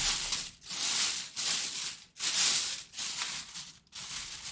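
Plastic wrapping crinkling and rustling in about six short bouts as a full-size football helmet is handled and unwrapped.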